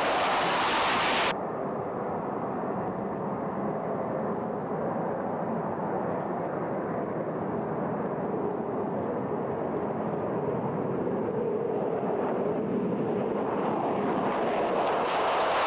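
Saab JAS 39 Gripen fighter's single Volvo RM12 turbofan on the takeoff roll: a loud, hissing jet roar close by that cuts off suddenly about a second in to a duller, more distant roar. The roar slowly grows and turns loud and hissing again near the end as another Gripen rolls past close.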